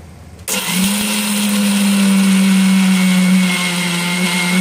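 Electric mixer grinder switching on about half a second in, spinning up and running at a steady high-speed hum as its stainless steel jar grinds grated coconut, roasted gram and green chilli dry, without water.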